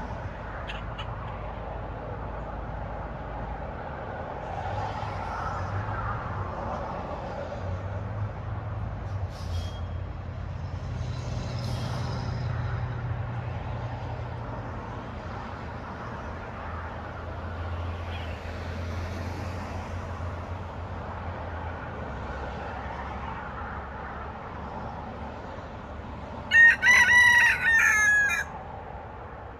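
A rooster crows once near the end, a loud cock-a-doodle-doo lasting about two seconds in several linked phrases. A steady low rumble runs underneath.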